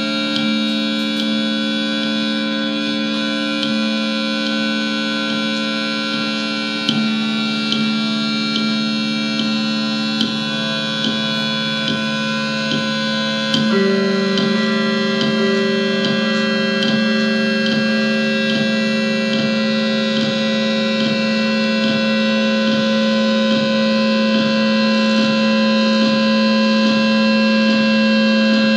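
Instrumental band music: a sustained droning chord with a faint steady pulse about twice a second. It shifts to a new chord about halfway through and slowly grows louder.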